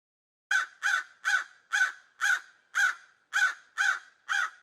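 Crow cawing: a run of nine harsh caws, about two a second, starting about half a second in and stopping abruptly at the end.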